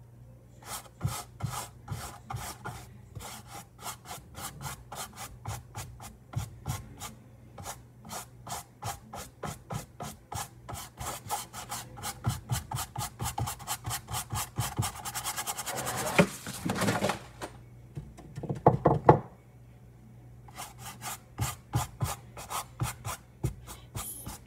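Paintbrush scrubbing back and forth on a canvas, a quick scratchy stroke several times a second, faster and louder in the middle, with a short break about two-thirds of the way through.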